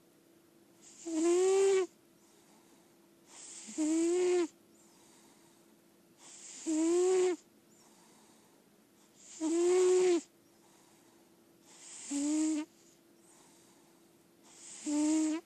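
Lilac point Siamese cat snoring in her sleep: six snores about every two and a half seconds. Each one starts as a soft drawn-in breath and swells into a loud, pitched snore that rises and falls slightly in tone.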